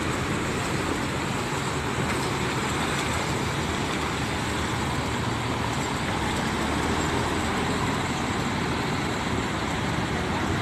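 Large coach bus engine running as the bus moves slowly across the yard, a steady low rumble.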